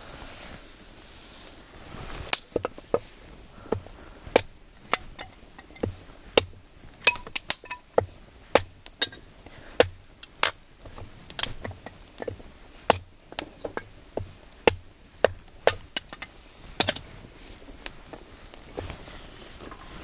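A series of sharp knocks, irregularly spaced at about two a second, starting about two seconds in and stopping shortly before the end.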